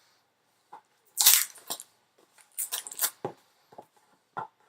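Packaging crinkling and rustling as a camera is pulled out of its box, in several sharp bursts with a few light knocks. The loudest burst comes about a second in, with another cluster around the middle.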